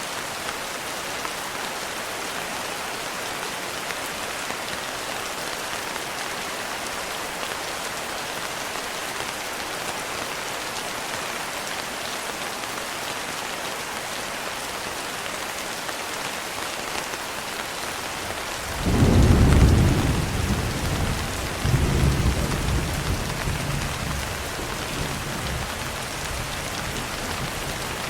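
Steady rain falling, with a low roll of thunder about two-thirds of the way through: a loud rumble that swells again a few seconds later and then dies away.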